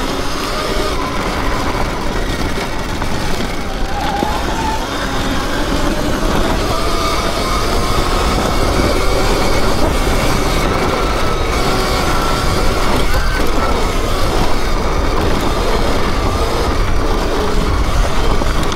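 Surron electric dirt bike being ridden: the electric motor's whine rises and falls with speed over a loud, steady rush of wind and riding noise.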